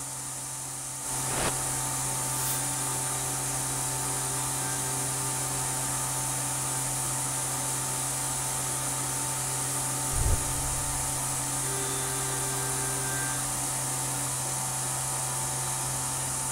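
CNC mill spindle turning a half-inch end mill at 8000 RPM through a light finishing pass in metal, with flood coolant spraying: a steady machining hum and whine over coolant hiss, which the machinist says sounds perfect, the sign of a light chip load. It gets a little louder about a second in, and a brief low thump comes about ten seconds in.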